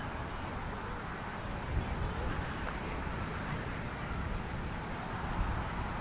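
Steady outdoor ambience: wind rumbling on the microphone over distant road traffic, with a couple of soft bumps.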